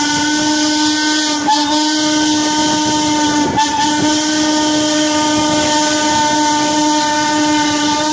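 Steam whistle of Norfolk and Western steam locomotive #475 blowing one long blast of about eight seconds, faltering briefly twice, over a hiss of steam, heard from a coach behind the engine.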